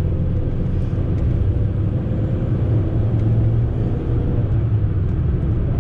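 Fiat Panda driving along at steady speed, heard from inside the cabin: a constant engine hum over tyre and road rumble.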